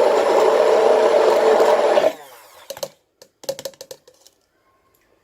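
Electric hand blender motor running steadily, then switched off about two seconds in, followed by a few short clicks and knocks.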